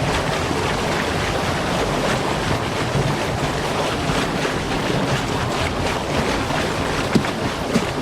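Waterfall rushing steadily, a loud even roar of falling water, with a few short sharp knocks near the end.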